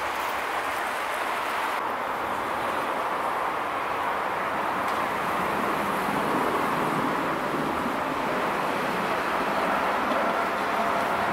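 Steady hum of city street traffic.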